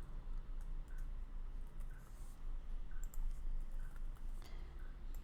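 Faint, sparse clicks of a computer keyboard and mouse, roughly one a second, as a password is entered, over a steady low hum.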